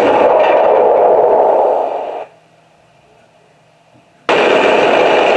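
Sound unit of a Tamiya German StuG III radio-control tank playing gunfire effects through its small speaker. Two harsh, noisy blasts of about two and a half seconds each, starting suddenly, with a quiet gap between them.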